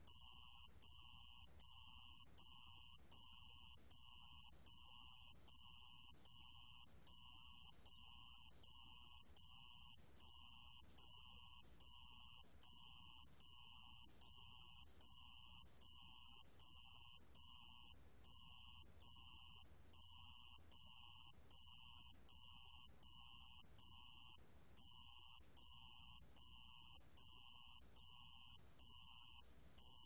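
Sand bell cricket (모래방울벌레) singing at 28 °C: a high, pure-toned trill in even pulses just under a second long, a little more than one a second, with one slightly longer break about three quarters of the way through.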